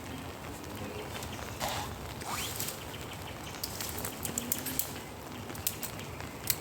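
Rain falling steadily, with scattered sharp drops ticking and pattering close by.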